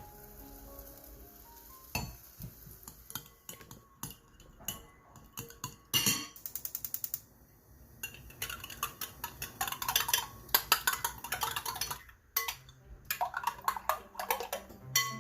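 Kitchen utensils clinking and tapping against dishes in irregular bursts. About six seconds in there is a quick, even run of ticks, roughly nine a second.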